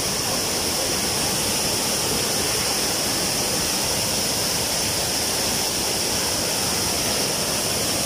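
Waterfall pouring over rocks into a pool close by: a loud, steady rush of falling water.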